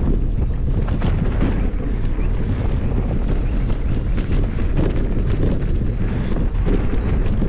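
Wind buffeting an action camera's microphone while a Merida Big Trail 500 hardtail mountain bike rolls down a dirt trail, with steady tyre noise and frequent clicks and rattles from the bike over bumps.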